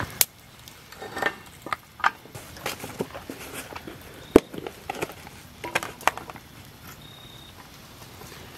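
Scattered clicks, knocks and rustles of camp gear and twigs being handled beside a small burning twig stove, with one sharp knock about four seconds in.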